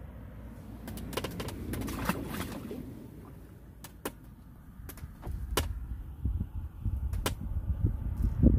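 Close handling noise of fishing tackle and paste bait: scattered sharp clicks and rustles in the first half, then low rumbling bumps against the microphone that get louder near the end.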